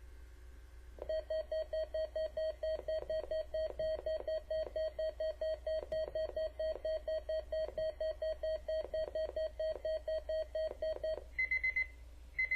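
Midland WR-300 weather radio sounding its alert alarm, set off by the Weatheradio Canada weekly test: a rapid, even beeping at about four beeps a second for about ten seconds. Two short bursts of higher-pitched beeps follow near the end.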